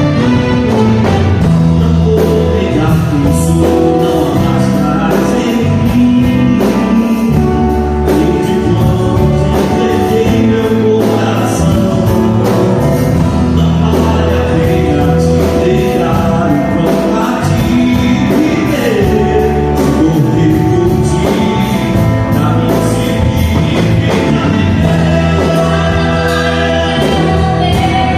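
Gospel music: voices singing over instrumental accompaniment, with a strong, steady bass line.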